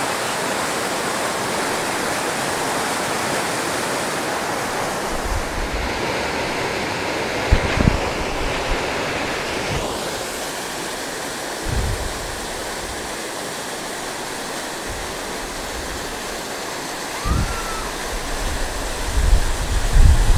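Waterfall and white-water rapids rushing steadily. Wind gusts buffet the microphone now and then from about five seconds in.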